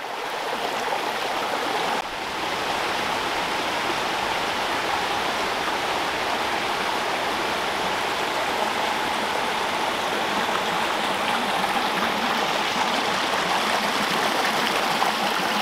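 Small spring-fed brook running over rocks and spilling down a little cascade: a steady, even rush of water.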